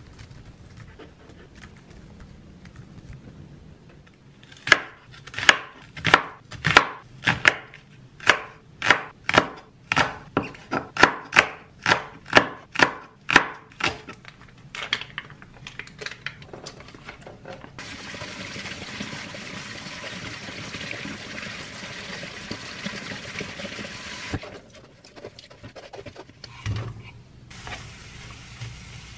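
Kitchen knife chopping green onion on an acacia wood cutting board: sharp, regular strikes about twice a second for some ten seconds, after a few faint laptop keyboard clicks. Later a steady hiss runs for several seconds.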